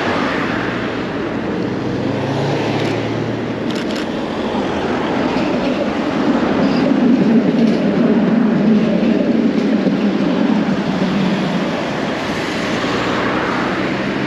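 Road traffic at a busy city intersection: cars and buses running past steadily, growing louder in the middle as a vehicle passes close with a low rumble, then easing off.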